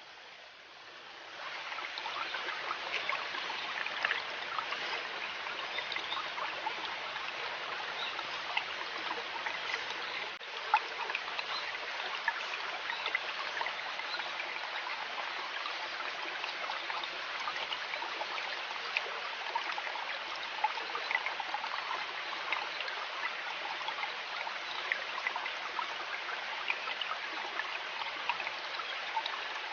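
River water flowing and trickling, with steady babbling and many small splashes. It rises in level about a second and a half in.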